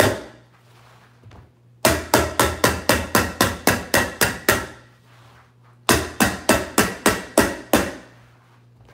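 Hammer tacker driving staples through carpet pad along a seam: two quick runs of sharp strikes, about four a second, the first of about a dozen starting some two seconds in and the second of about eight near the six-second mark.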